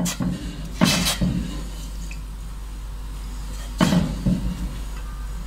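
A silicone spatula stirring sugar into water in a steel pot to dissolve it, with three sharp scrapes or knocks against the pot, about a second in and near four seconds in, over a steady low hum.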